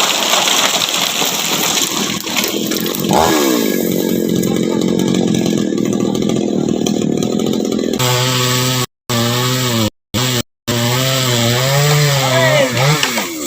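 Chainsaw running under load, cutting through the trunk of a dead mahogany tree, its pitch sweeping as it is revved about three seconds in. Some eight seconds in the sound switches abruptly to a steadier pitched sound that wavers up and down, broken by brief silences.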